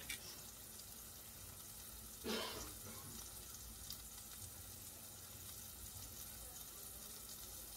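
Plant-based burger patties sizzling in grapeseed oil in a stainless-steel skillet on medium heat: a faint steady hiss, with one short louder noise about two seconds in.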